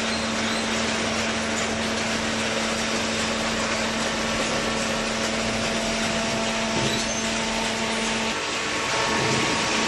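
Horizontal cardboard baler running: a steady machine hum with a constant low tone over a dense hiss. The tone drops out briefly about eight seconds in, then comes back.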